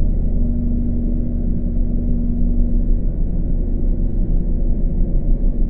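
Sound-art drone: a dense, low mass of sound with several steady held tones, one clear hum standing out for the first three seconds before it fades back into the mass.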